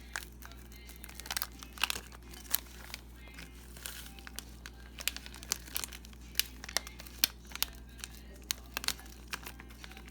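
A plastic packet crinkling and rustling as it is handled and emptied, in irregular runs of sharp crackles.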